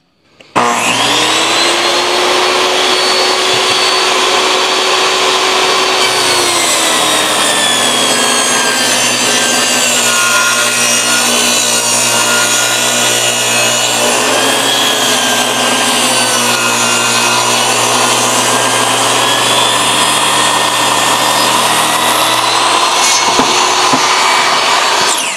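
Portable table saw starting up and ripping a rough-sawn sawmill pine board lengthwise, truing it to width. The motor whine sags and wavers under load through the long cut. Near the end the saw is switched off and begins to wind down.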